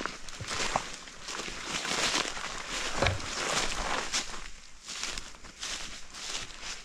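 Footsteps with rustling and crunching, someone walking over forest ground at an uneven pace.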